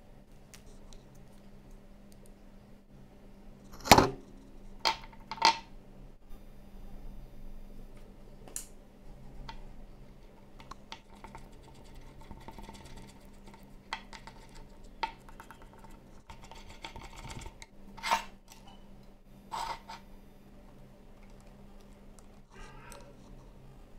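A plastic spoon and small plastic bowl being handled while slime is mixed: scattered clicks and knocks with some soft scraping, the loudest knock about four seconds in.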